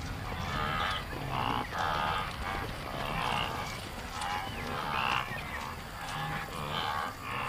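Wildebeest herd calling: a run of short, nasal, honking grunts from several animals, about one or two a second.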